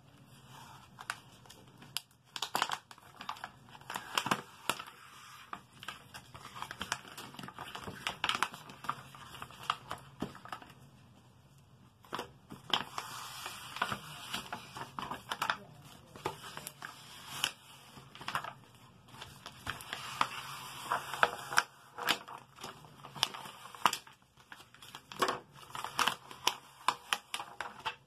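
Black heat transfer vinyl being peeled by hand off its clear plastic carrier sheet while weeding a cut design: irregular crinkling and crackling with small snaps, easing off briefly about ten seconds in.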